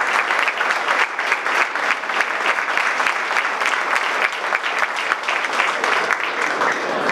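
Crowd applauding: dense clapping from many hands, which dies down near the end.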